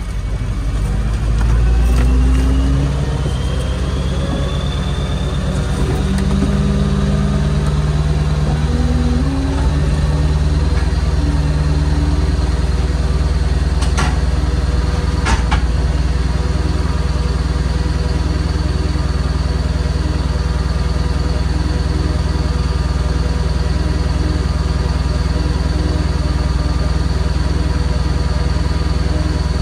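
Tow truck engine running while the truck stands still. The revs climb over the first few seconds and then hold steady, with a thin whine rising alongside. Two sharp clicks come about halfway through.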